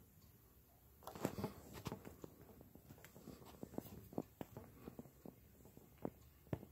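Faint, irregular small knocks and clicks over quiet room tone, with no notes sounding.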